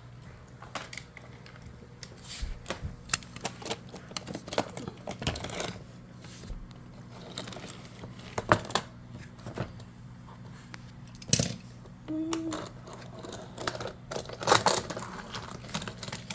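Hard toy pieces, such as magnetic blocks, wooden track and die-cast cars, clicking and clattering as they are handled, in irregular sharp knocks with a couple of louder clacks.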